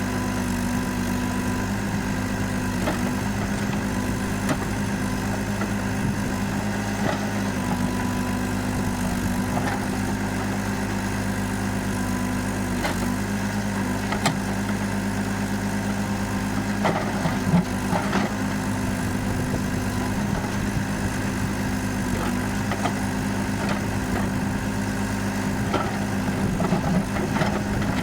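Komatsu FAI 898 backhoe loader's diesel engine idling steadily, with a few light knocks about two-thirds of the way through and again near the end.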